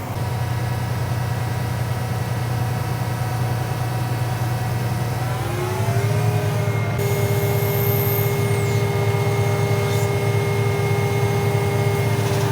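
Tractor engine running steadily, then revving up about halfway through and holding the higher speed, as it drives the hydraulics that unfold the plow's wings.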